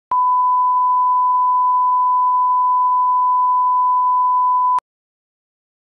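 Steady 1 kHz line-up tone, a single pure beep, played under colour bars as the audio reference for calibrating levels. It cuts off suddenly with a click near the end.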